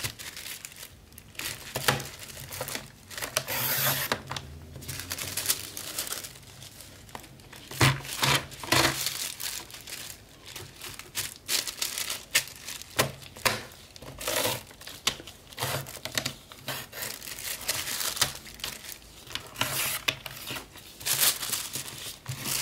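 Tissue paper crinkling and rustling in irregular bursts as it is handled and cut on a sliding paper trimmer.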